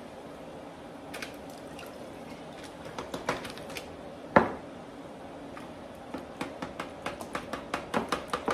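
A spoon scraping bouillon paste out of a jar, with a single sharp clink about four seconds in. Then a quick run of clicks and liquid sloshing as the spoon stirs the paste into broth in a roaster pan.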